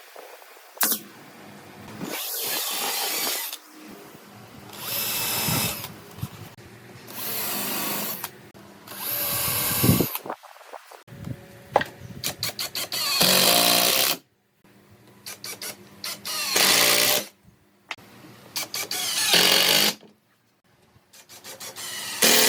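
A power tool run in repeated short bursts of a second or so each, about eight times, with brief pauses and a few clicks between.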